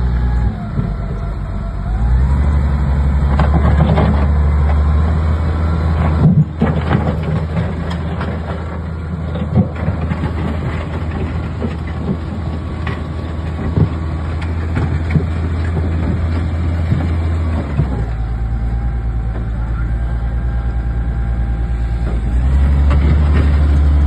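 L&T 9020 wheel loader's diesel engine running under load as its front blade pushes soil, with scattered knocks and clanks. The engine note rises about two seconds in, eases near eighteen seconds and rises again near the end.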